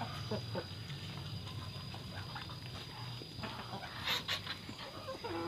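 Chickens and Muscovy ducks crowding to feed, with soft animal calls, scattered small taps and scuffles, and a short flurry of wing flapping about four seconds in.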